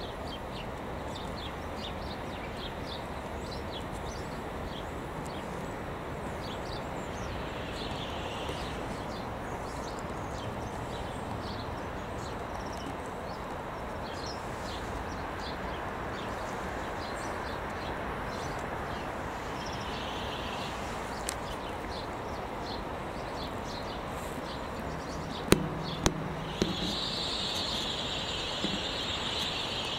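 Steady running noise of passenger trains passing on the main line, with short high chirps scattered through it. Near the end come two sharp clicks, then a steady high hiss.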